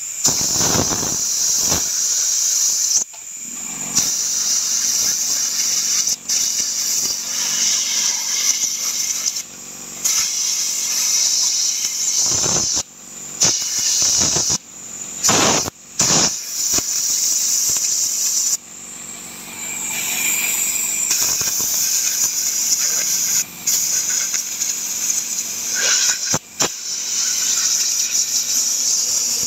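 Compressed-air blow gun hissing in long blasts with several short breaks, blowing blistered paint off a metal licence plate.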